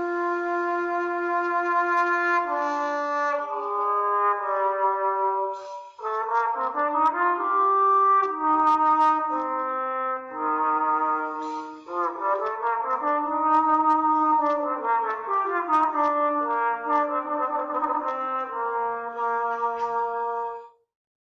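Trombone playing a melody in three phrases of held notes, with a smooth slide up and back down in pitch partway through.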